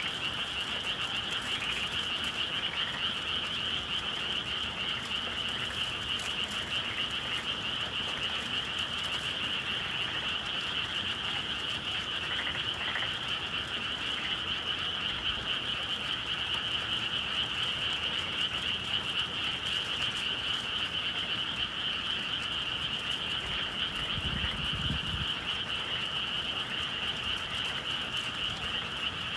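A dense chorus of many frogs calling at once, an unbroken trilling wall of sound, heard on a spring evening in the countryside. A brief low rumble comes in near the end.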